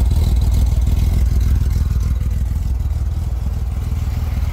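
1964 Chevrolet Corvair's air-cooled flat-six engine idling steadily shortly after a cold start, its exhaust coming through the muffler as a low, even pulsing note.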